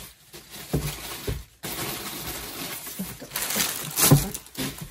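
Packaging rustling as it is handled and items are pulled out, with a few soft knocks.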